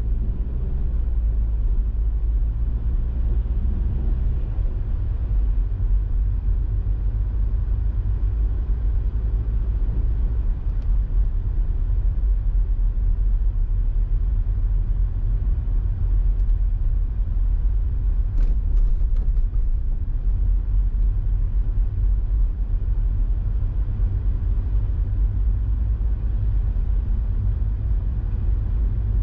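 A car driving: a steady low rumble of engine and road noise, with a few faint clicks about two-thirds of the way through.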